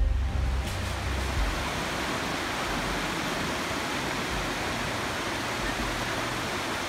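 Steady rush of shallow creek water running over a rocky bed in small riffles, with the tail of background music dying away about a second in.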